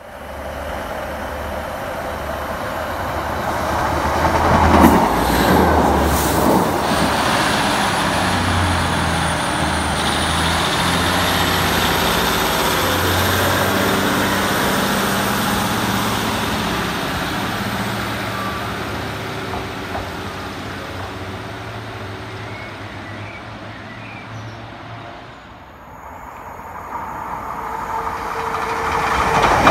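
ScotRail Class 156 diesel multiple unit running past with its underfloor diesel engines, loudest about five seconds in with a few sharp knocks and a high whine rising in pitch, then fading away over about twenty seconds. Near the end a second Class 156 is heard approaching, growing louder.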